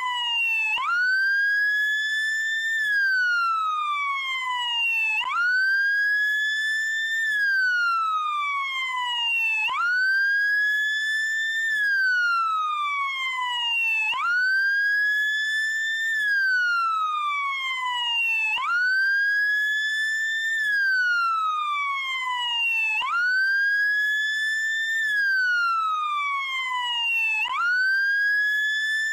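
Police car siren on wail: a single tone rising over about two seconds and falling back over about two and a half, the cycle repeating every four and a half seconds or so.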